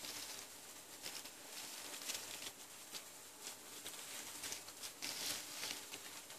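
Faint rustling and crackling of dry orchid roots and leaves as bunches of wild orchid plants are picked up and shifted by hand, a little louder about five seconds in.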